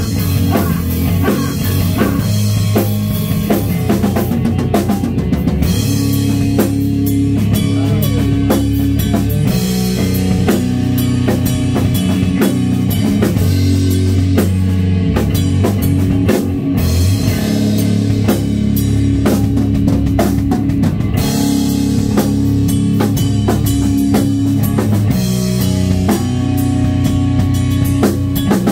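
A rock band playing live: electric guitar, electric bass and a drum kit with a steady kick-drum beat.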